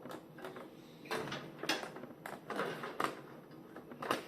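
Hands handling a PC case and its parts: a few light clicks and knocks with scraping rustles in between.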